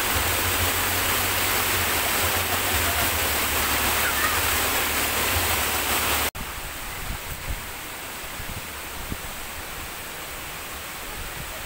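Flowing water: a steady rush of water moving through a rock-lined swimming pool, then after a sudden cut about halfway through, a quieter, shallow stream running over rocks and pebbles.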